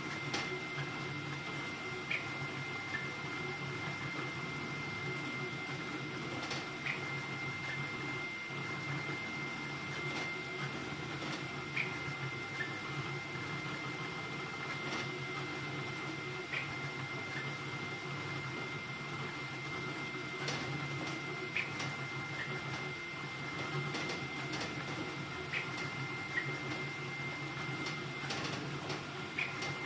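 Ender-3 V3 3D printer running a high-speed print: a steady motor whine over a low hum, with a short click every few seconds.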